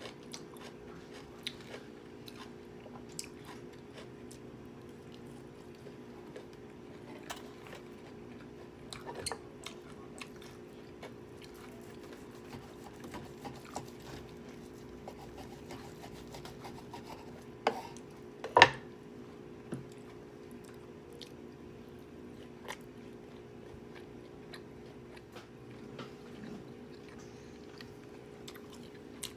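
Close-miked mukbang eating: chewing and biting with scattered crisp crunches and wet mouth clicks. A steady low hum runs underneath, and a single sharp loud clack comes about two thirds of the way through.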